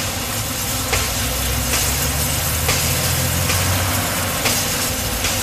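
Small narrow-gauge steam locomotive standing with steam hissing, over a steady low engine-like rumble and faint ticks about once a second.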